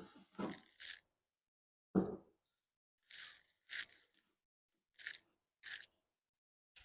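Short crunching and scraping noises with one heavier knock about two seconds in: hose reels being moved and set into place on a wooden platform.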